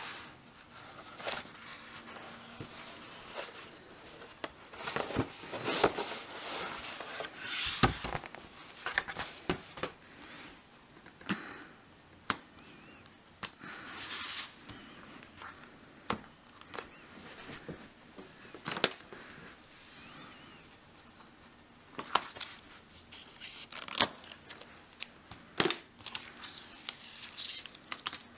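Cardboard and paper being handled: a cardboard mailer opened and a pack of printed folded note cards unwrapped, with rustling and crinkling, longer scraping rustles about five to eight seconds in, and scattered sharp taps and clicks of the cards on a wooden tabletop.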